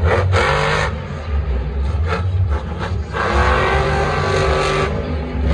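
Zombie monster truck's supercharged V8 revving hard as the truck spins on the dirt, with a short burst about half a second in and a longer one from about three to five seconds, and a steady low engine rumble between.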